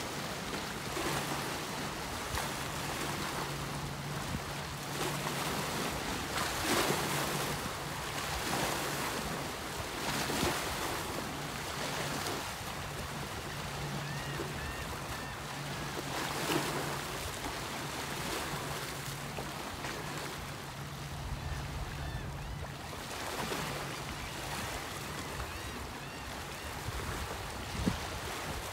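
Small waves washing and splashing against a rock shoreline, rising and falling every couple of seconds, over a steady low hum. Wind rumbles on the microphone for a few seconds about three-quarters of the way through.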